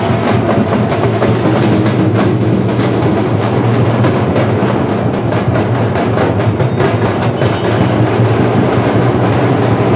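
Loud, drum-heavy festival music with fast, steady percussion strikes over a sustained low bass.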